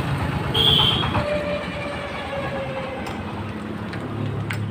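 Passing vehicle noise: a steady low rumble with a brief high squeal about half a second in and a faint falling whine after it.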